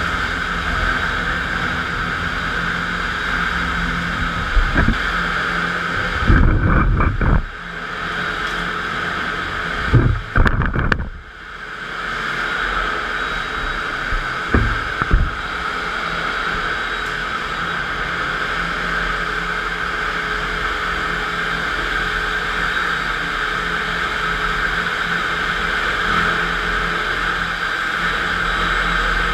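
FastPrep electric concrete floor grinder running with 16-grit single-rhombus diamond plates, grinding a concrete floor with a steady whine and hiss. A few low thumps and knocks come between about six and fifteen seconds in, and the grinding sound dips briefly twice.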